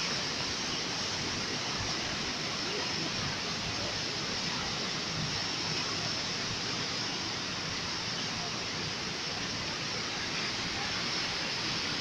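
Sea waves washing over and around rocks along the shore, a steady rushing noise.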